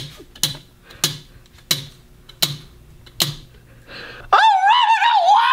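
A spinning prize wheel ticking, the ticks coming further and further apart as it slows to a stop. Near the end, a loud high-pitched tone that wavers up and down.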